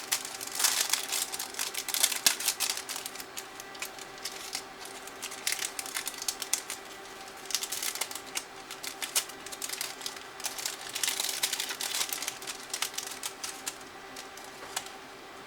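Quick runs of small clicks and rattles of small parts being handled on a work table, over a faint steady hum.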